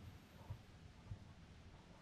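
Near silence: room tone, with two faint soft knocks about half a second and a second in.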